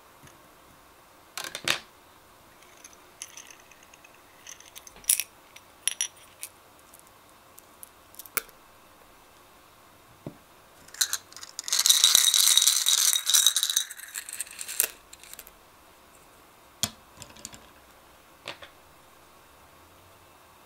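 Small clear plastic cups clicking and tapping as they are handled, and around the middle a dense rattle of about three seconds, the loudest sound, of small hard candies shaken in a plastic cup.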